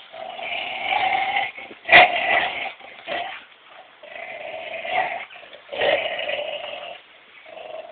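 Dog play-growling during a game of tug of war, in rough bouts about a second long with short breaks between them. One sudden, sharper and louder sound comes about two seconds in.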